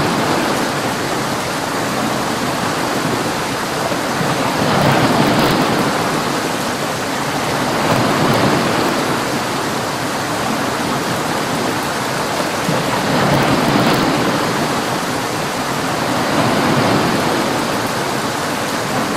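Heavy storm rain, a dense steady hiss that swells and eases every few seconds.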